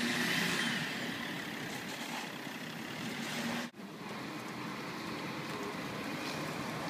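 Mercedes-Benz Citaro articulated city bus pulling away and turning, its diesel engine running steadily under road noise. The sound drops out briefly a little past halfway.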